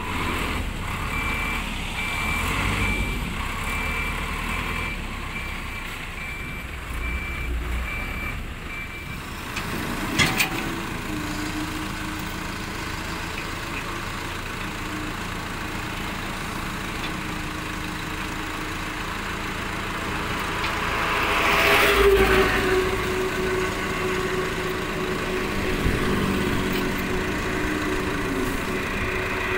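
Diesel engines running with a reversing alarm beeping at an even pace for the first several seconds. After a knock about ten seconds in, a truck engine runs steadily and revs up about twenty-two seconds in with a steady whine, as the tipper truck's hydraulic hoist raises the dump body.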